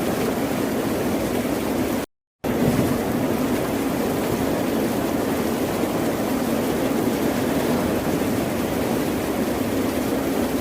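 Steady wash of ocean surf, a continuous rushing noise without distinct wave breaks. About two seconds in the sound cuts out completely for about a third of a second, then resumes at the same level.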